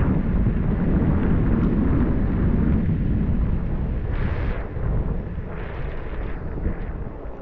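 Steady rumble of wind and vehicle noise while travelling, with two louder rushing swells past the middle; it eases off near the end.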